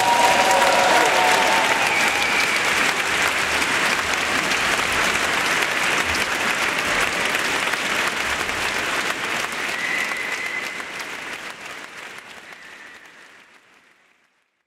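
Audience applauding a choir in a large church, with the echo of the choir's last chord dying away in the first second. The applause fades out over the last few seconds.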